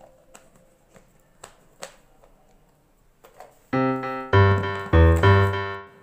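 Faint plastic clicks and taps as a toy surprise egg is handled. About two-thirds of the way through, loud background keyboard music comes in, with piano-like chords struck a little under twice a second.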